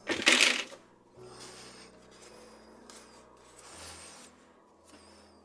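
Handling noise from the metal parts of FELCO 7 secateurs being worked during reassembly: a short loud scraping noise at the start, then softer rubbing twice.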